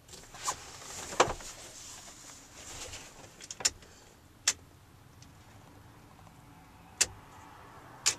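Six or so sharp clicks and knocks at irregular intervals inside a vehicle's cabin, with a rustling hiss over the first few seconds.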